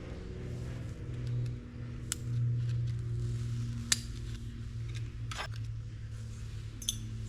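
A few sharp clicks and taps of small metal fishing-reel parts being handled, over a steady low hum.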